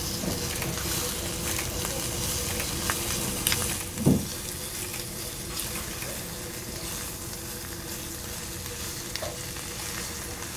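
Raw beef, rice and egg sizzling in a very hot stone bowl as two metal spoons stir them, with small scrapes and clicks of the spoons against the bowl and one louder knock about four seconds in. The hot bowl is cooking the raw beef as it is mixed.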